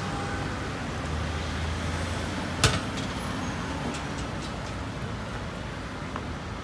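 City street traffic noise: a steady hum of passing and idling vehicles, with one sharp knock about two and a half seconds in and a few faint ticks soon after.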